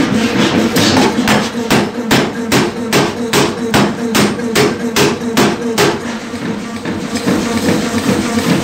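Pneumatic power hammer forging a red-hot thick steel plate: a quick, even run of heavy blows, about three a second, that stops about six seconds in. A steady hum runs underneath.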